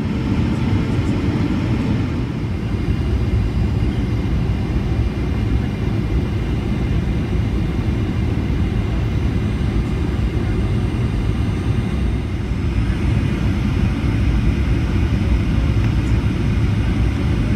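Steady low rumble of airflow and engine noise heard inside the cabin of a Boeing 737-800 on its descent and approach.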